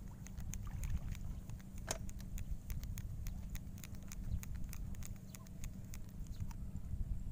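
Fishing line being hand-wound onto a plastic spool by gloved hands, giving an irregular run of small clicks and ticks, several a second, over a low rumble.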